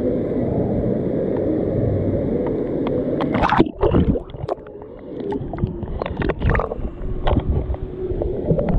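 Water sloshing and splashing against an action camera held at the surface of a lazy river. About three and a half seconds in, the camera dips under with sharp splashes, and the sound turns muffled and underwater, with scattered clicks and a faint steady hum.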